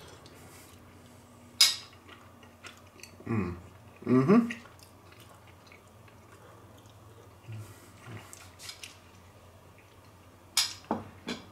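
Metal spoon clinking and scraping on a plate while someone eats, with a sharp clink about a second and a half in and a quick run of clinks near the end. Two short vocal sounds from the eater a little after three and four seconds in.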